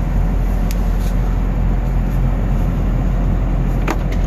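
2016 Chevrolet Corvette Stingray's 6.2-litre LT1 V8 idling steadily, heard from inside the cabin. Two quick clicks come near the end.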